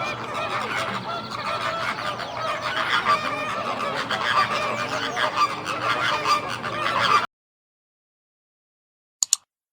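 A crowd of birds calling over one another, many honking calls overlapping in a noisy chorus, which cuts off abruptly about seven seconds in. A single short, sharp click comes near the end.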